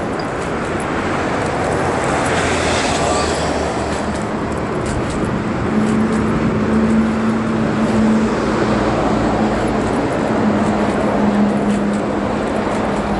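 Steady city road traffic noise, with a rolling rumble as a wheelchair moves along the paved sidewalk. A vehicle swells past about two to three seconds in, and a low steady hum comes and goes in the second half.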